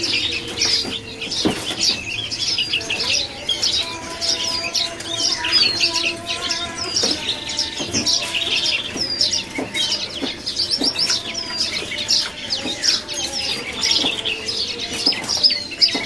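Prenjak lumut singing a steady run of quick, high, repeated chirps, over other caged birds calling and whistling lower notes.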